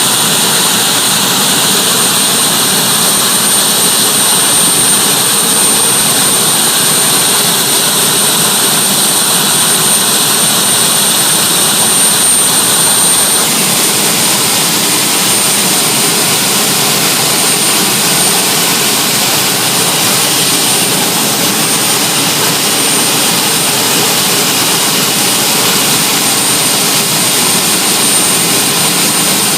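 The turbine-powered pulling tractor 'Whispering Giant' warming up: its gas-turbine engines run steadily with a high whine over a loud, dense rush. The upper part of the sound shifts a little about thirteen seconds in.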